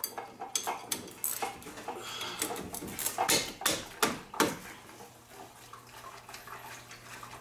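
Metal hand tools clinking and knocking irregularly against the brake caliper and wheel hub of a car's front wheel as its bolts are loosened, with a run of louder knocks around the middle.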